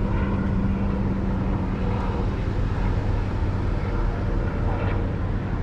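Steady low droning hum of an engine running, over outdoor background noise; a higher tone in the hum fades out about two seconds in.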